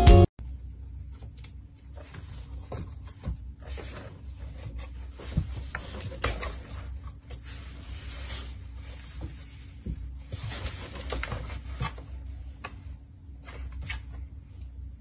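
A cat scuffling in a cardboard box as it grabs at a feather wand toy: irregular light scratches, rustles and taps of claws on cardboard over a faint steady hum.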